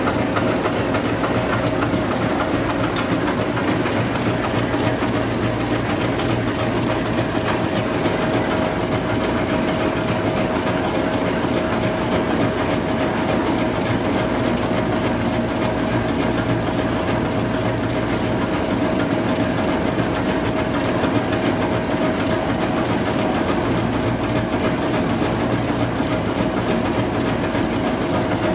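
Cassava brush washing and peeling machine running steadily: a constant mechanical hum from the motor and turning brush rollers, with water spraying and cassava pieces tumbling against the brushes.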